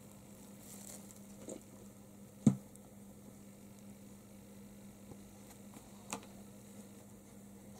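A kitten pawing and nosing at headphones and cellophane bags on a desk: faint rustling with a sharp click about two and a half seconds in and a lighter one about six seconds in, over a steady low hum.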